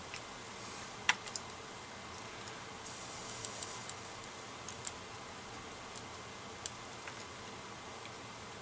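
A hot soldering iron tip sizzling for about a second, a few seconds in, with a sharp click before it and light ticks of handling around it.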